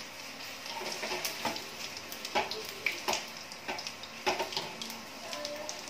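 Cumin seeds and dried red chillies sizzling in hot ghee, a steady hiss broken by frequent sharp pops and crackles as the seeds splutter: the tempering (tadka) for a curry.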